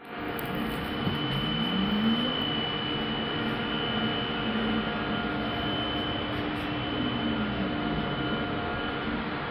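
Cabin noise of an electric bus under way: the electric drive's whine rises in pitch as the bus speeds up about a second in, holds steady, then falls as it slows near the end, over a steady hum of road and ventilation noise.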